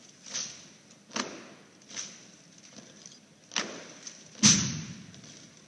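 Marine silent drill team's M1 Garand rifles being slapped, caught and handled: five sharp knocks at uneven intervals. The loudest comes about four and a half seconds in and carries a deeper thud.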